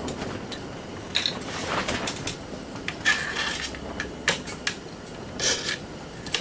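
Scattered clicks, knocks and short scrapes of small metal parts being handled and pulled apart while a garage door opener is stripped for scrap.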